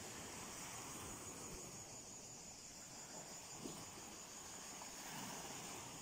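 Small sea waves washing gently onto the shore, faint and steady, with an unbroken high-pitched insect chirring over it.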